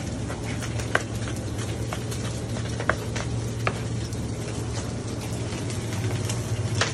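A kitchen knife cutting red chillies on a plastic cutting board, heard as a few scattered sharp knocks over a steady low hum.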